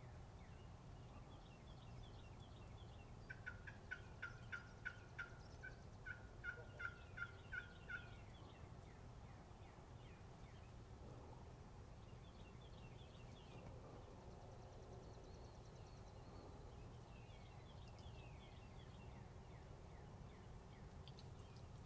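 Turkey yelping: two runs of evenly spaced yelps, about four a second, the first starting about three seconds in and the second after a short pause, with faint songbird chirping in the background.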